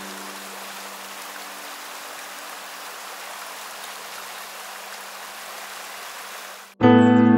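A steady rushing noise of running water. It cuts off abruptly near the end as loud music begins.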